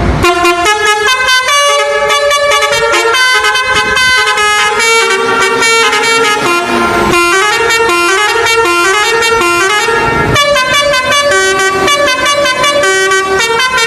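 Telolet horn on a trailer truck playing a quick melody. Several horn tones sound together and jump from note to note, without a break.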